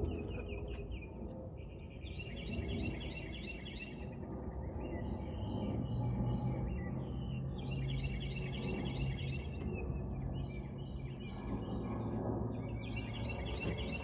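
A bird singing repeated fast trills, each a second or two long, over a steady low hum.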